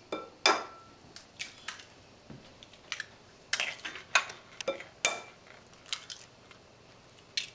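Eggs being cracked and broken open over a bowl of ricotta: a series of about ten sharp taps and cracks of shell, spread out one after another.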